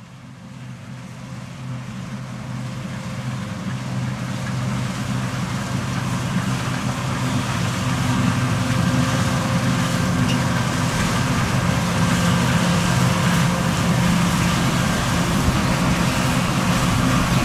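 Fendt 6275 L combine harvester running steadily with a low engine hum, growing louder over the first eight seconds or so, then holding steady.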